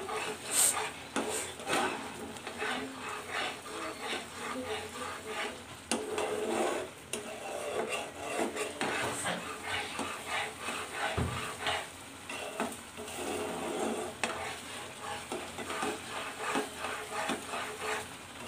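Spatula scraping and stirring thick, reduced milk around a nonstick frying pan in quick, irregular strokes. The milk has cooked down to a dense kheer.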